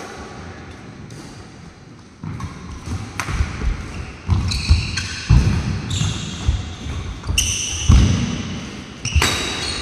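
Badminton doubles rally on a wooden court, starting about two seconds in: rackets strike a nylon shuttlecock with sharp pops, players' feet thud on the boards, and shoe soles squeak briefly as they move and lunge.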